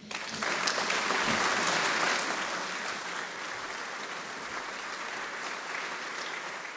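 A large audience applauding, starting at once and strongest in the first two seconds, then easing a little and holding steady.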